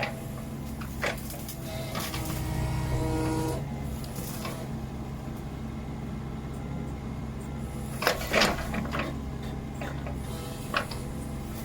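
Kubota KX61-3 mini excavator's diesel engine running steadily, with several sharp knocks over it. The loudest knocks are a pair about eight seconds in.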